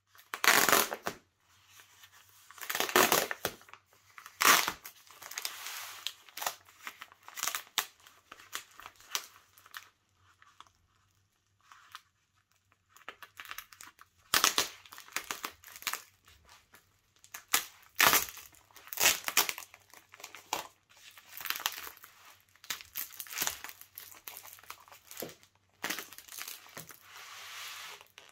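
Black waterproof plastic wrapping being pulled open and peeled back by hand from a rolled leather hide, crinkling and tearing in irregular bursts, with a quieter pause about halfway through.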